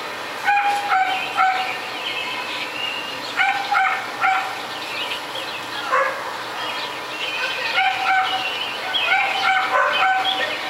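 Dogs barking repeatedly, in irregular runs of two or three short barks with pauses between.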